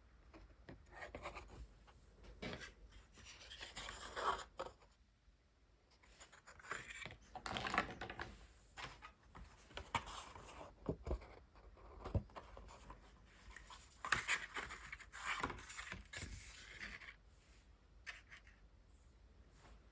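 Water-based brush-marker tips rubbing and scratching across hot-press watercolour paper in a series of strokes about a second long, with a few light clicks between them.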